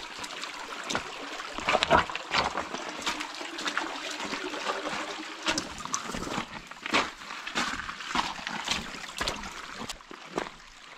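A shallow creek trickling over rocks, with footsteps crunching on gravel and brush rustling against the walker, heard as many short irregular crunches over the steady water sound.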